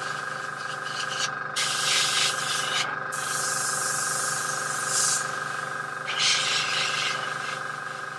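Airbrush spraying paint in three separate bursts of hissing air, each one to two seconds long, over the steady hum of its air compressor.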